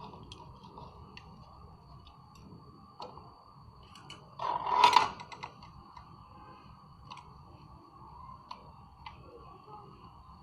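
Scattered light clicks and handling noises from wires and small parts being worked by hand, with one louder rustling scrape lasting under a second about halfway through.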